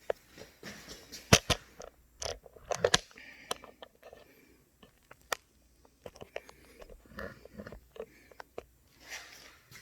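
Irregular clicks, knocks and light scraping from a photo booth's hard transport case being handled and unlatched, with the sharpest knock about a second in and a quick run of clicks around two to three seconds in.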